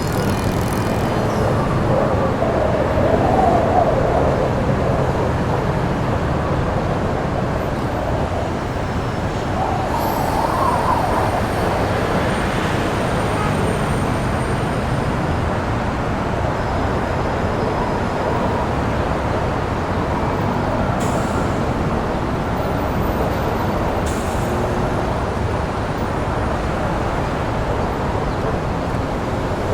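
DJI FPV drone's motors and propellers running steadily, heard from on board as a dense whir mixed with wind rush. The pitch rises briefly about three seconds in and again around ten seconds.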